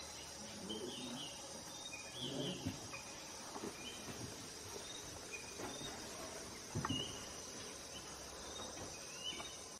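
Steady high-pitched chorus of crickets and other insects from the forest, with scattered faint short chirps over it and a soft knock or two a little before the end.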